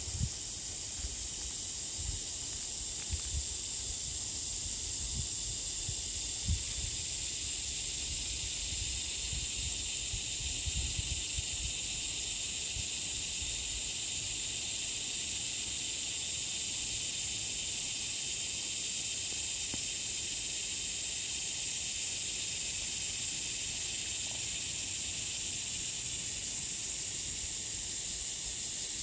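Steady, high-pitched insect chorus with a regular fast pulsing on top. There are a few faint low thumps in the first ten seconds or so.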